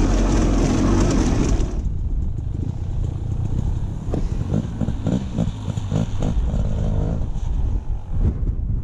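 KTM 250 EXC two-stroke dirt bike engine running as it is ridden along a dirt trail, revving up and down with repeated short throttle rises. The sound is heavy with wind and ride noise at first and changes abruptly about two seconds in.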